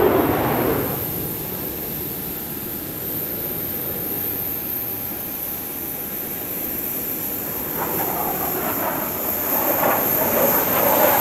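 Jet engine noise from military display jets flying overhead: loud at the start and fading as one jet passes, then building again over the last few seconds as the formation comes round.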